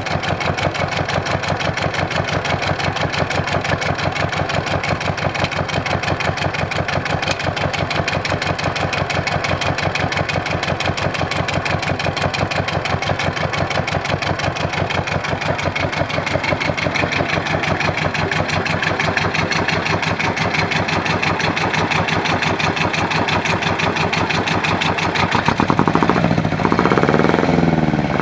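Isuzu 2AB1 two-cylinder marine diesel idling on a test run, its firing pulses steady and even. Near the end it gets louder and its pitch rises and wavers as the engine speeds up.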